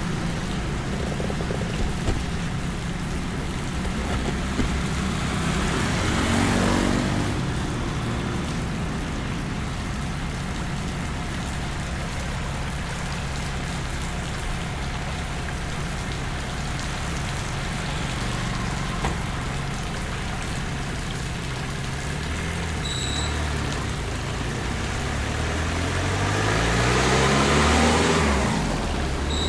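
Road vehicles driving past in the rain, two of them swelling loud and fading as they pass, over a steady low engine hum and a constant hiss of rain and wet road.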